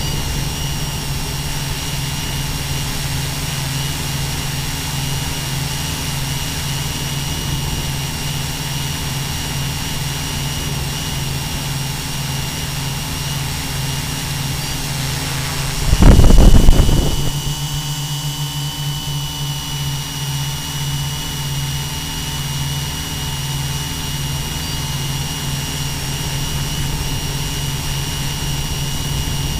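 Electric motors and propellers of a multirotor drone running steadily in flight, heard from on board: a steady low hum with a thin high whine over a rushing noise. About sixteen seconds in, a sudden loud low rumble lasts about a second.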